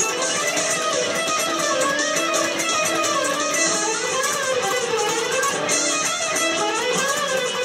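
Background music: a steady guitar-driven instrumental track.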